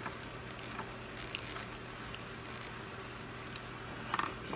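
Faint scattered clicks and ticks of a small screwdriver and fingers working the screw terminals and plastic body of an inline lamp cord switch as a terminal screw is tightened, with a short cluster of louder clicks about four seconds in.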